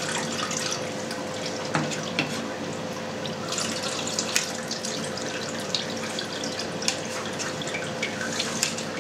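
Whey trickling and dripping as it drains out of a plastic cheese mold packed with feta curds into a perforated steel tray, with light scrapes and clicks of a plastic slotted spoon levelling the curds. A steady hum sits underneath.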